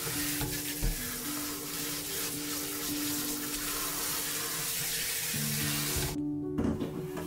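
Water pouring from a kitchen tap into a stainless-steel sink, splashing onto pine needles in a shallow plastic tray. The stream cuts off abruptly about six seconds in, over soft background music.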